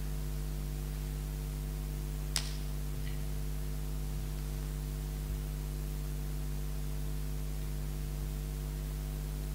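Steady electrical mains hum from the microphone and sound system, with a single light click about two and a half seconds in.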